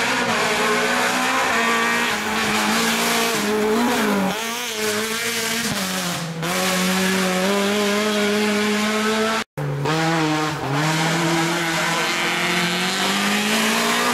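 Peugeot 206 rally car's engine running hard at high revs, its pitch dropping briefly and climbing again several times. The sound cuts out for an instant about two-thirds of the way through.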